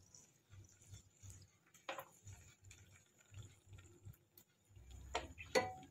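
Faint sizzling and crackling of two dry red chillies frying in hot oil for a tadka in a small pan, with scattered small pops and a sharper one about two seconds in.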